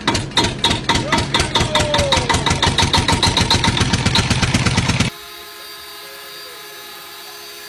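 A rapid, loud pulsing rumble, about eight pulses a second, that cuts off suddenly about five seconds in; then a small quadcopter drone hums steadily and more quietly.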